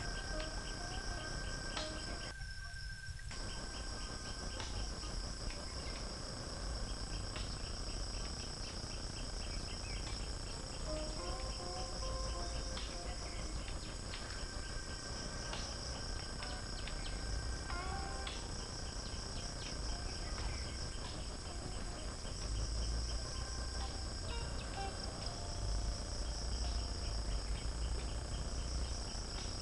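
Steady high-pitched chorus of insects with a rapid ticking pulse running through it, and a few short bird calls. A low rumble grows louder near the end.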